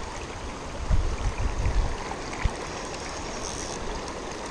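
River water running and lapping in the shallows, with wind gusts buffeting the microphone about one to two seconds in.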